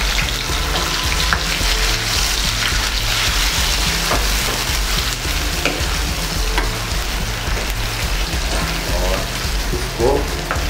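Marinated chicken pieces sizzling in hot oil in a pan, with a few light scrapes and clicks as they are stirred.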